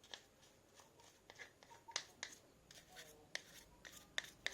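Irregular light clicks and taps, about a dozen over a few seconds, of small parts and hand tools being handled during carburetor repair work.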